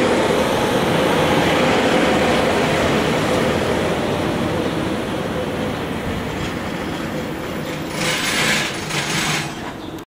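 JR Hokkaido 789 series electric limited express train running in along the platform as it arrives, the wheel and running noise easing off as it slows. Near the end come a couple of short hissing bursts.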